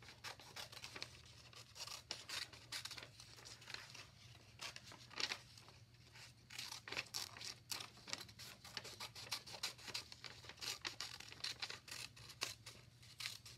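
Scissors cutting through a sheet of lined notebook paper: a run of short, irregular snips with paper rustling between them.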